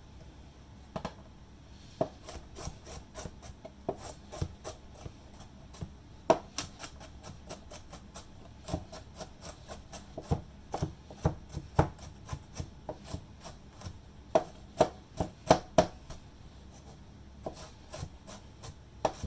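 Kitchen knife dicing a carrot on a cutting board: quick, uneven knocks of the blade striking the board, with a short lull near the end before a few more chops.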